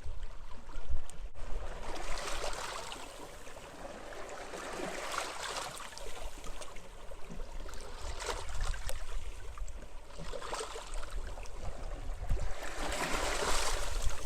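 Sea waves breaking and washing onto a beach in wind, the wash swelling and fading every two to three seconds over a low rumble.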